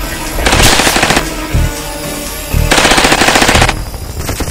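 Two bursts of automatic rifle fire. The first is short, about half a second in. The second lasts about a second and starts near the three-second mark.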